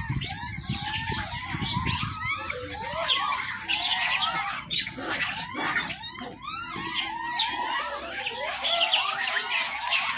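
A large troop of rhesus macaques feeding on scattered wheat and millet, many short high squeals and chirps overlapping without a break. Under the calls there is a dense scratching and rustling of hands picking grain off the concrete floor.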